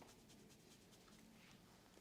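Near silence, with faint, quick scratchy rubbing sounds.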